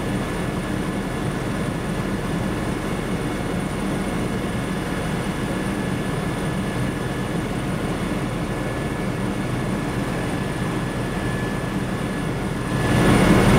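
Steady drone of a light aircraft's engine and propeller, heard from inside the cockpit. It gets louder about a second before the end.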